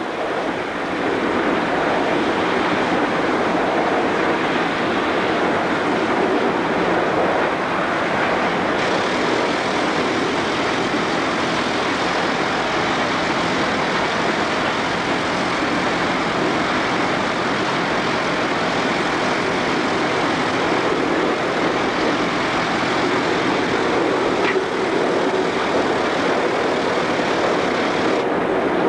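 Cab noise of the R class 4-6-4 steam locomotive R 707 running at speed: a loud, steady rush of steam and running gear. A higher hiss joins about nine seconds in and drops away near the end.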